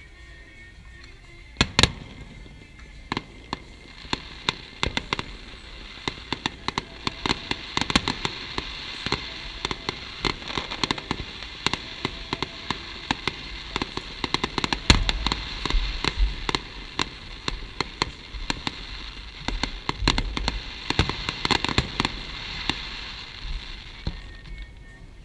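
Fireworks going off: a fast string of sharp bangs that soon builds into a dense, continuous crackle, with deeper booms about halfway through and again later, before thinning out near the end.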